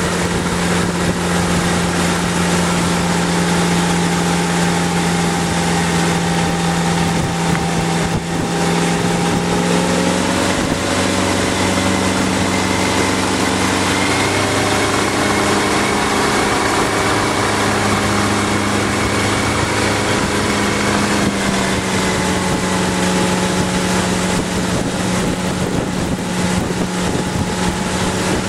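Motorboat engine running steadily at towing speed, over the rush of wind and the boat's wake. The engine note rises slightly about ten seconds in and settles back about twenty-one seconds in.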